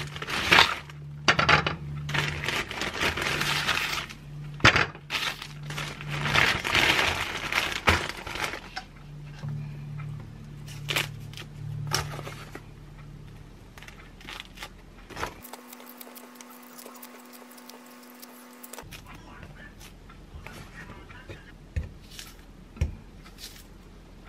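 A plastic zipper bag crinkles and rustles as bread is handled inside it, loudest for the first several seconds. Later comes quieter tearing of citrus peel as a hallabong is peeled, with soft taps as the segments drop into a blender cup.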